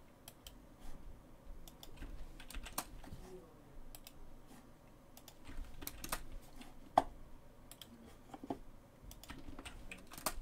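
Computer keyboard keystrokes and mouse clicks, irregular and spaced out, with one sharper click about seven seconds in.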